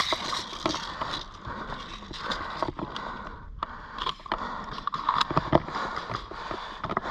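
Players moving quickly over dry ground at the start of an airsoft round: footsteps crunching and scraping through brush and leaves, with scattered sharp clicks and cracks.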